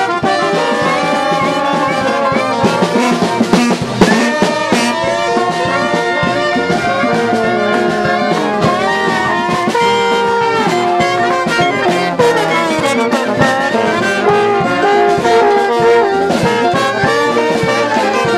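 New Orleans brass band playing a second-line jazz tune: trombones and trumpets in close-up, with held notes and sliding trombone smears.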